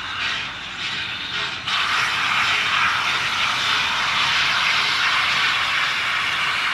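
1923 ALCO 0-6-0 steam locomotive hissing steam: softer, uneven hissing at first, then a loud steady hiss starts suddenly about two seconds in and holds.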